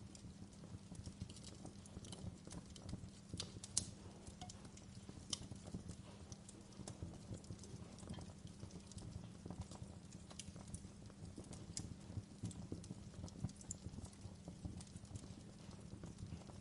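Wood fire crackling in a fireplace: irregular sharp pops and snaps over a low, steady rumble of the flames, with the loudest pops about four and five and a half seconds in.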